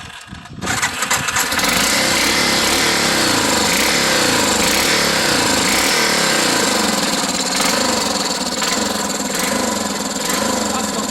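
Yamaha Big Bear ATV's single-cylinder four-stroke engine catching after a brief lull and then running steadily. The owner reports that it is hard to start and makes a noisy metallic tock.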